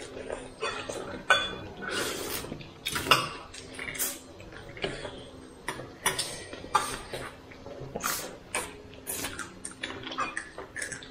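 Dishes and cutlery clinking during a meal: many sharp, irregular clicks and knocks.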